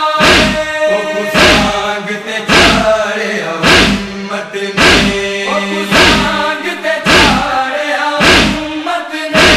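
Noha: men chanting a mournful lament in long held notes over heavy matam (chest-beating) thuds that keep an even slow beat, about one a second.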